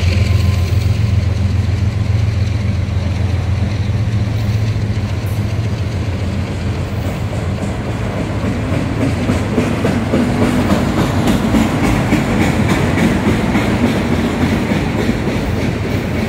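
Autorack freight cars rolling slowly past close by, their steel wheels rumbling on the rails, with clickety-clack clicks of the wheels coming through more in the second half. A locomotive's steady engine hum fades out just at the start.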